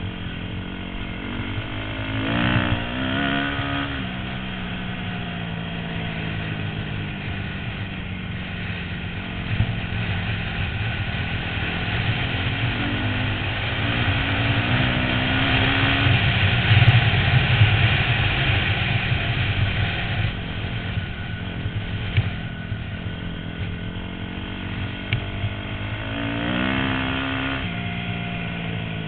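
250 cc motorcycle engine running under load on a dirt flat track, heard from the rider's helmet. The revs climb in short rising runs about 2, 13 and 26 seconds in, and it is loudest around the middle.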